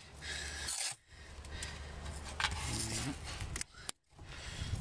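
Masking tape being pulled off the roll, with a ripping hiss near the start and again near the end, and rubbed down by hand onto the body panel in between.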